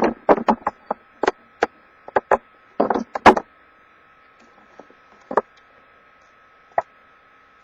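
Quick clicks and knocks of a cardboard box being handled, a dense run of about a dozen in the first three and a half seconds, then two single knocks later, over a faint steady high hum.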